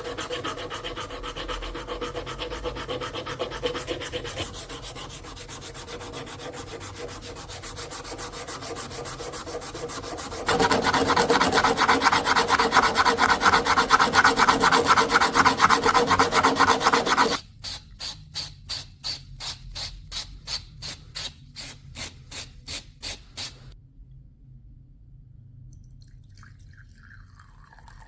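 Hand abrasive rubbing in quick back-and-forth strokes, as in sanding or polishing during the restoration. It turns louder about ten seconds in, then changes to slower, separate strokes at roughly two a second, which stop a few seconds before the end.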